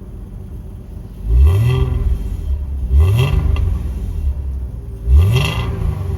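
1992 Nissan 300ZX's naturally aspirated 3.0-litre V6 idling and revved three times, each blip rising quickly in pitch and falling back to idle.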